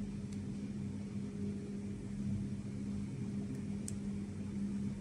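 Steady low mechanical hum, with a couple of faint clicks.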